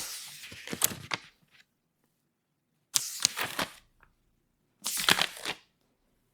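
Pages of a book being flipped three times, each a crisp papery rustle lasting about a second with a few sharp crackles, with silence between them.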